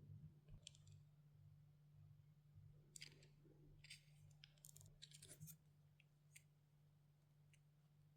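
Near silence over a low steady hum, with a few faint clicks and light scrapes, most of them bunched a few seconds in.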